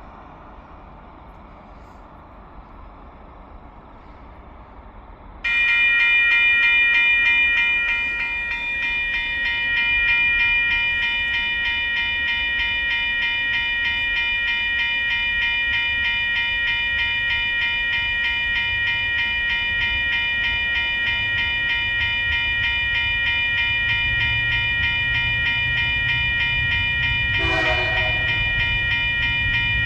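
Level crossing warning bells start ringing suddenly about five seconds in and keep ringing steadily. A diesel locomotive's low rumble builds near the end as the train approaches, with a brief horn toot just before the end.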